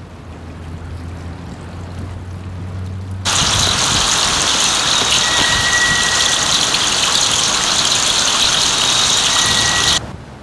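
Splashing water of a tiered garden fountain, heard first at normal level over a low hum. About three seconds in it jumps suddenly to a much louder, hissy rush as it is picked up through a paper parabolic sound-collector dish, microphone and amplifier, with a faint thin whine coming and going. It cuts off abruptly near the end.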